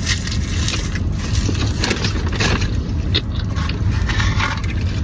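Steady road rumble inside a moving car's cabin, with scattered short crackles and crunches from handling and biting fast food.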